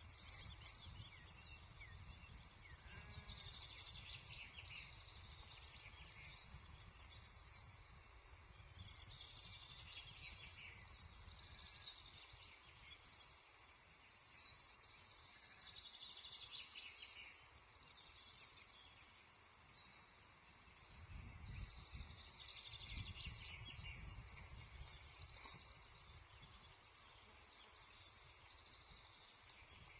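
Faint birdsong: short repeated phrases and trills from several small birds, over a low rumble that swells about two-thirds of the way through.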